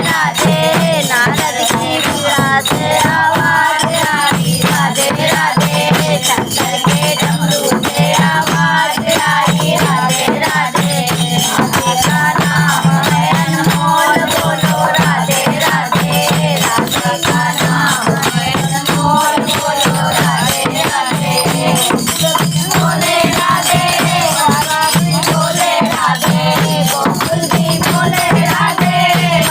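Hindi devotional folk song music: a wavering melody over a steady low drone, with a rhythm of jingling, shaken percussion.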